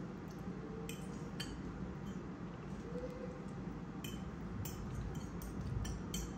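A metal fork clinking and scraping against a ceramic bowl while eating: a few light clicks about a second in, then a quicker run of clinks in the second half.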